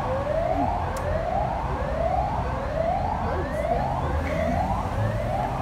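Siren, its pitch rising in sweeps that repeat a little faster than once a second, each falling back sharply, over a low rumble.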